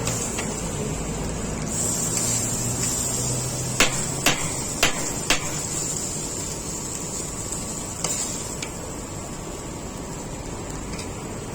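Steady background hiss and hum broken by a run of four sharp knocks, about two a second, a little past a third of the way in, and a single knock later.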